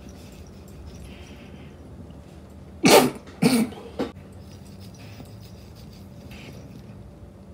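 A man coughs hard three times in quick succession, about three seconds in, the first the loudest. The coughs come as he exhales a large dab hit of hash rosin from a Puffco Peak.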